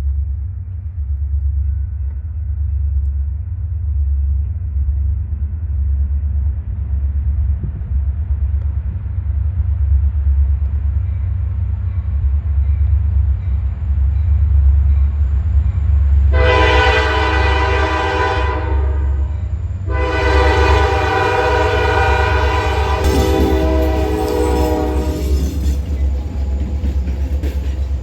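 Diesel locomotives approaching with a low, steady rumble that slowly grows. Partway through, the locomotive's air horn sounds a chord twice: a blast of about two and a half seconds, then a longer one of about five seconds.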